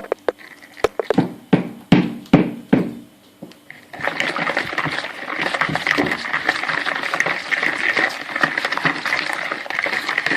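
A few knocks and clinks of a glass and utensil against a mixing bowl as oil is added to the batter. About four seconds in, the batter starts being stirred briskly, a steady fast wet scraping in the bowl.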